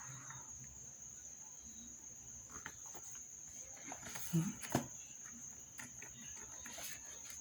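A steady high-pitched whine runs throughout, with a few soft knocks and rustles of the cardboard keyboard box being handled, two louder ones about four and a half seconds in.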